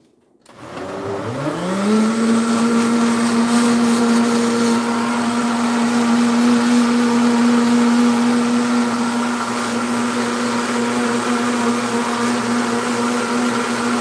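Countertop blender switching on about half a second in, its motor whining up to speed, then running steadily as it purées watermelon rind into a thin green smoothie.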